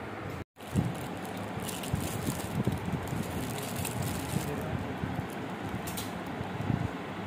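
Steady rustling and handling noise with scattered light crackles. The sound cuts out completely for a moment about half a second in.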